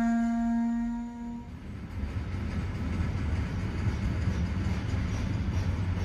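A held background-music note fades out about a second and a half in. Then comes the low, steady rumble of a freight train of tank and container wagons rolling past.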